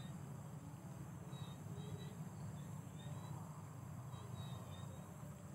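Faint field ambience: short high chirps of insects, repeated irregularly, over a steady low rumble.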